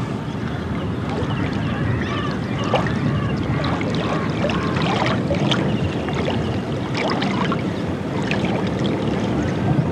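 Steady low rumble of a boat under way on the river, with wind on the microphone, and a few short high calls rising and falling in the middle.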